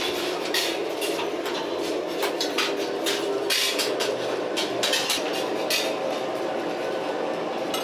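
Workshop noise: irregular sharp knocks and clanks, several a second, over a steady hum.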